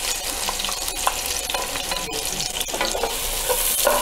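Finely chopped onions sizzling in hot oil and ghee in a nonstick pot as a wooden spatula stirs them, a steady hiss with scattered sharp clicks.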